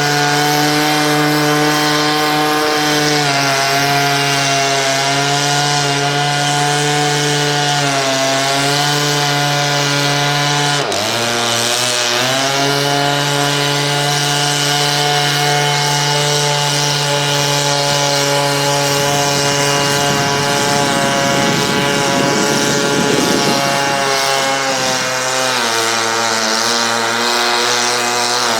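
Gas-powered chainsaw running underwater while cutting submerged wood, its engine speed holding steady but sagging several times, most sharply about eleven seconds in and again near the end.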